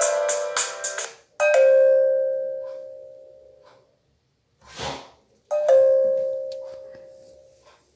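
Microsoft Lumia 535 ringtones playing through the phone's loudspeaker. A busy electronic melody stops about a second in, then a bell-like chime strikes once and rings out over about two seconds. A short burst of noise follows, then a second identical chime strike rings out.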